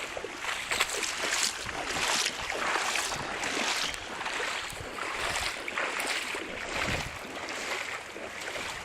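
Legs wading through floodwater, swishing and splashing in a rough rhythm that swells about once a second with each step.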